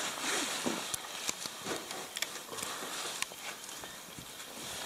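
Light handling noises as plastic baler twine is wrapped around a snowmobile's primary clutch: soft rustling with scattered small clicks. The engine is not running.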